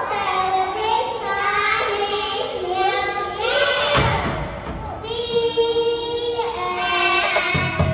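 A group of young children singing together, with a thump about halfway through.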